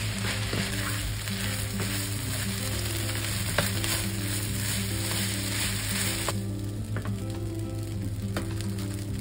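Beef fried rice sizzling in a frying pan as it is stirred and turned with a wooden spatula, with a few sharp knocks of the spatula on the pan. The sizzle drops away abruptly about six seconds in.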